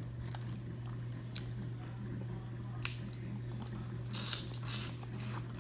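A person eating a char-broiled oyster: two sharp clicks, then wet chewing and mouth sounds about four seconds in and again a half second later, over a steady low hum.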